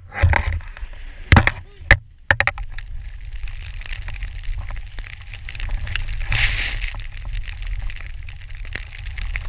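A few sharp knocks on a chairlift in the first two seconds. Then wind rumbles on a pole-mounted action camera's microphone as a skier rides deep powder, with a hissing rush of snow spray about six and a half seconds in.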